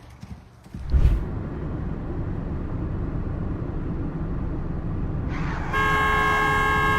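A vehicle's engine rumbling, with a sharp jolt about a second in. A horn then sounds in one long steady blast over the last second or so.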